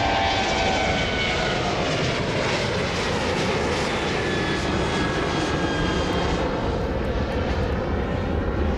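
Jet airliner flying overhead: a steady engine rumble with a whine that falls in pitch over the first few seconds.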